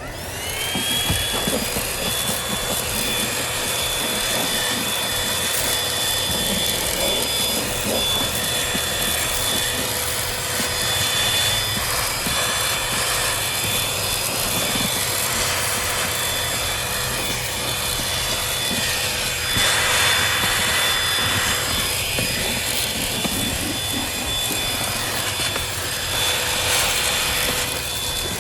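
Cordless vacuum cleaner switching on: its motor spins up to a steady high whine over the rush of air. Near two-thirds of the way in, the air rush grows louder for about two seconds.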